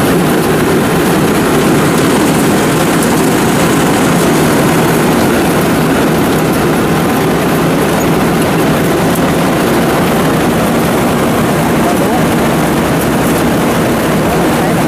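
Homemade Vietnamese rice combine harvester running at close range, its engine and threshing machinery making a loud, steady drone while it threshes rice and delivers grain into sacks.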